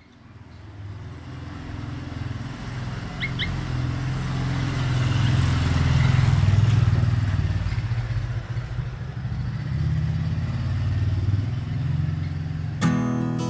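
Motorcycle engine passing close by, growing louder to a peak about halfway through and then running on steadily. Two short high chirps come about three seconds in, and acoustic guitar music starts just before the end.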